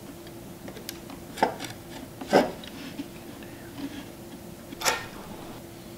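Rear amplifier panel of a Presonus R65 studio monitor being worked loose from its MDF cabinet by hand: several knocks, clicks and scrapes, the loudest about two and a half seconds in and another near five seconds.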